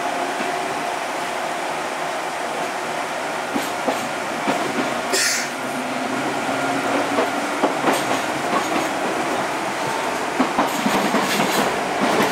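Running noise of an Enshu Railway 1000 series electric train heard inside the car at the gangway, with frequent sharp clicks and rattles that grow busier and a little louder in the second half as the train picks up. A short hiss about five seconds in.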